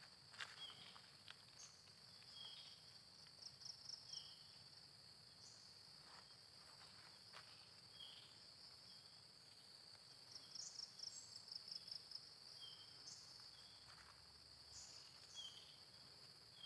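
Faint, steady high-pitched drone of an insect chorus, with short trills of rapid chirps twice and a few single chirps scattered through. There are soft rustling footsteps now and then.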